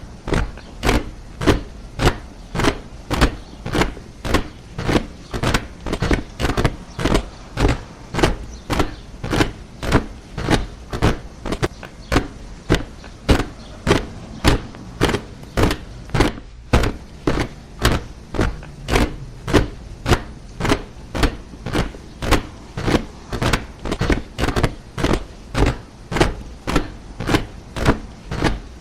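A body of soldiers marching in step: boots striking the ground together in a steady rhythm, about two footfalls a second.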